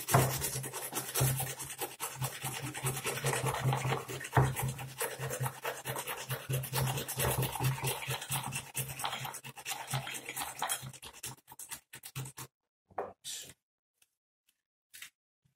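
An onion being grated on a hand grater: quick repeated scraping strokes that stop abruptly about twelve seconds in, followed by a few faint knocks.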